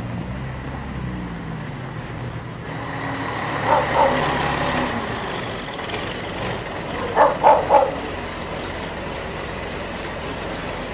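Scania T113 360 truck's diesel engine running at low speed as it pulls a heavy low-loader, a steady low hum under road noise. Short loud sounds rise over it about four seconds in, and three more come in quick succession about seven seconds in.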